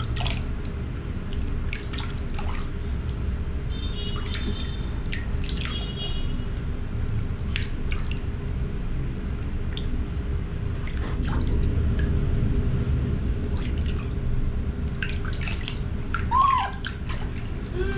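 Water splashing and dripping in a plastic tub as a baby monkey is bathed, with hands scooping water over it in scattered small splashes. A brief rising-and-falling squeak comes near the end.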